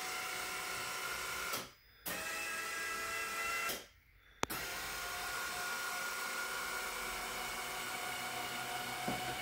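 Electric motor of a power-lift windshield whirring steadily as it tilts the windshield. It stops twice for about half a second, then runs for nearly five more seconds as the windshield closes.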